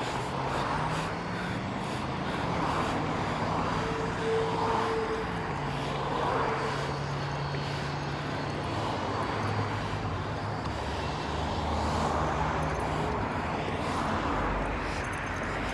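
Engine noise: a low drone whose pitch steps and glides up and down, over an even background hiss.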